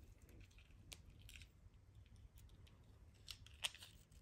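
Near silence with a handful of faint, short clicks as small pieces of costume jewelry are handled.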